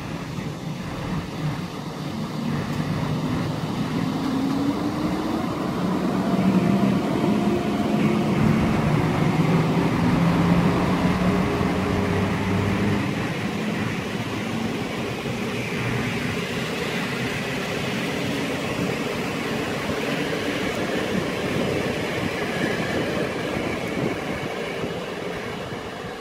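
PKP Intercity passenger train hauled by an EU07-family electric locomotive passing close by: wheels clattering on the rails and a motor whine that rises as it approaches and falls away after it goes by.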